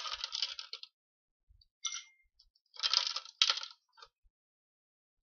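Ice cubes clattering and clinking as they are dropped by hand into a cocktail shaker, in several short bursts: a run of clatter at the start, then more around two and three seconds in, with a brief clink near the end.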